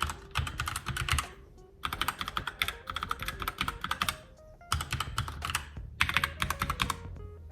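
Typing on a Logitech K845 mechanical keyboard with brown switches, which are tactile rather than clicky: rapid key clacks in four bursts with short pauses between.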